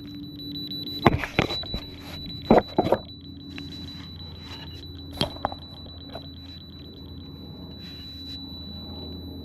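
Laser receiver beeping: a high steady tone breaking into rapid even beeps as it is moved across the laser line. Sharp knocks and clatter about a second in, around two and a half seconds and about five seconds in, over a steady low hum.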